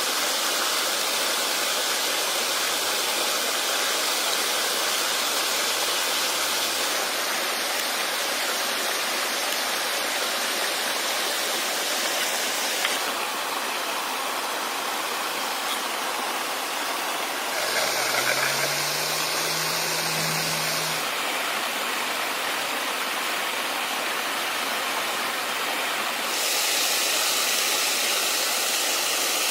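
Steady rush of flowing water, its character shifting abruptly a few times. In the second half a low hum rises and holds for about three seconds.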